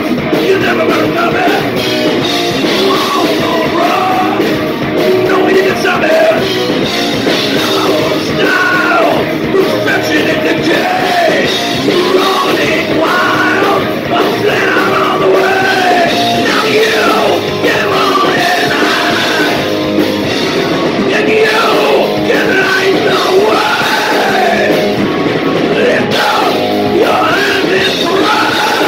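Live heavy rock band playing: electric guitars, bass guitar and drum kit, with a man singing over them into a microphone. Loud and continuous.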